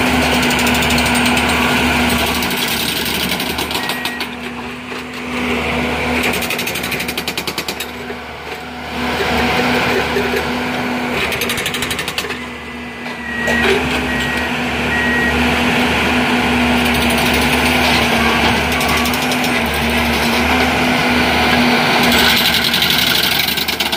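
Diesel engine and hydraulics of a rail-bound track maintenance-of-way machine running steadily with a mechanical rattle. The level dips briefly a few times, and there are a few short high beeps partway through.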